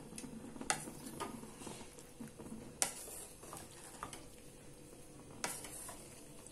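A spatula stirring and turning cooked rice in a black kadai, a soft rustle broken by scattered knocks and scrapes of the spatula against the pan. The sharpest knocks come about a second in, near three seconds in and about five and a half seconds in.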